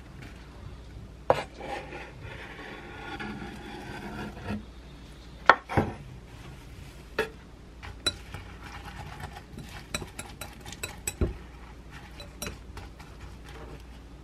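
A knife scraping chopped chives and enoki mushrooms off a wooden cutting board into a glass bowl. A sharp knock comes about five seconds in. Then a metal utensil stirs the egg and mushroom batter, clinking quickly against the glass bowl.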